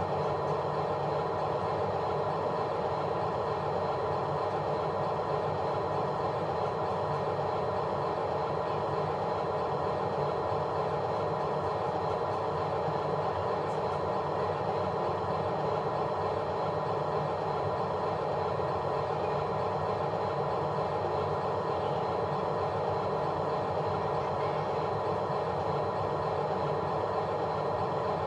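A steady, unbroken engine-like running noise.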